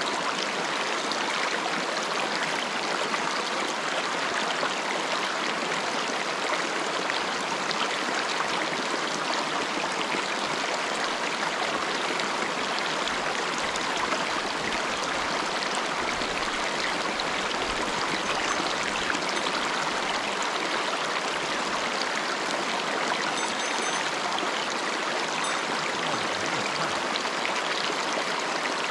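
Small, shallow mountain stream flowing over rocks and stones, a steady rush of water with no change.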